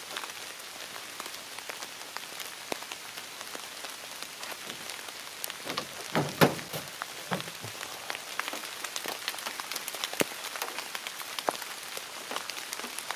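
Steady rain falling on leaf litter, with many separate drops ticking on top of an even hiss. A few louder, duller knocks come about halfway through.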